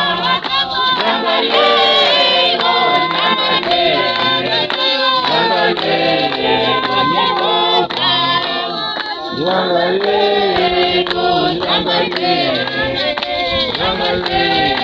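A group of mostly women singing together in chorus, with hand-clapping keeping a steady beat.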